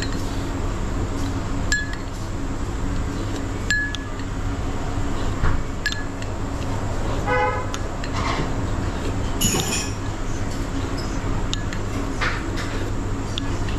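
Scattered clinks of dishes and cutlery over a steady background hum, with a short toot about seven seconds in.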